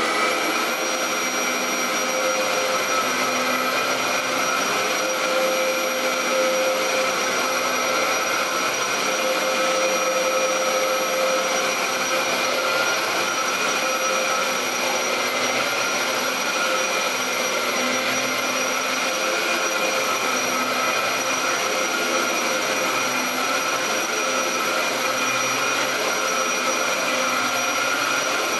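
Upright vacuum cleaner just switched on and running steadily, a high motor whine over the rush of air.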